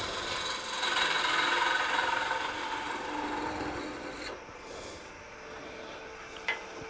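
A parting tool scraping through a spinning piece of green wood on a wood lathe, a steady rasping hiss, until the piece parts off about four seconds in. The lathe then runs on more quietly with a faint hum, and there is a small click near the end.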